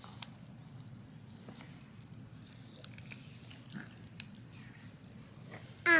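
Faint scattered crackling clicks, likely strawberry popping candy in a baby's mouth, then near the end a short loud baby squeal that falls in pitch.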